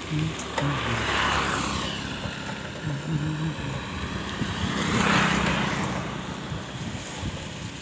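Road vehicles passing close by, heard as two swells of engine and tyre noise that rise and fade, one about a second in and another about five seconds in.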